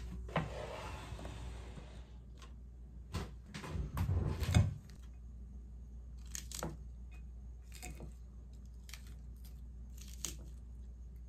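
Tableware handling: rustling and clattering with the loudest knocks about four to five seconds in, then a metal fork picking at salad on a ceramic plate, with sharp clicks about once a second.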